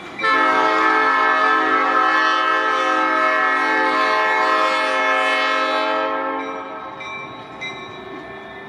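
Diesel freight locomotive's air horn sounding one long chord-like blast of about six seconds, starting sharply just after the start and trailing off near the end.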